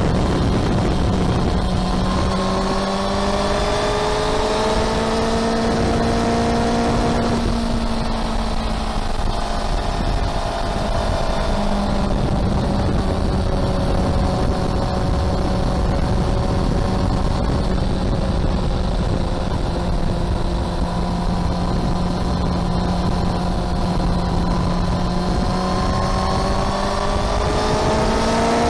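A motor vehicle engine running steadily and loudly. Its pitch rises as it revs up over several seconds, drops suddenly about seven seconds in, holds fairly level, then climbs again near the end.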